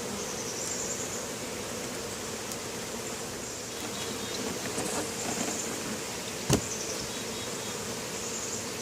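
Honeybees buzzing steadily around an opened hive, with a single sharp click about six and a half seconds in.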